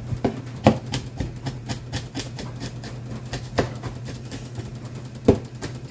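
Broad cleaver-style knife chopping garlic cloves on a wooden cutting board: a quick, irregular run of knife strikes on the board, with a few louder chops standing out.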